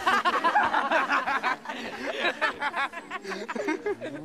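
A group of boys making mock ghostly moaning noises and snickering, imitating Dementors, their voices overlapping and sliding up and down in pitch. Near the end a low hum rises in.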